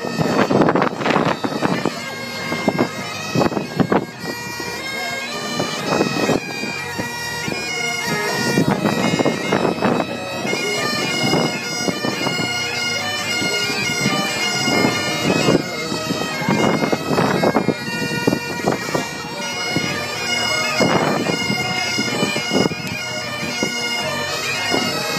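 Bagpipes playing a tune: a melody stepping between notes over steady drones.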